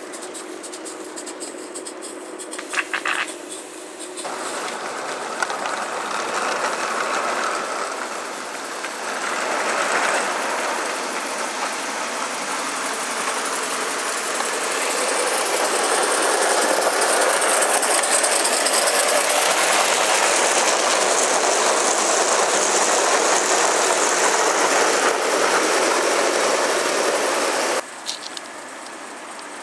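Live-steam Gauge 1 model locomotive running with its train: a hissing steam exhaust and wheels rattling on the track, swelling through the middle and breaking off sharply near the end.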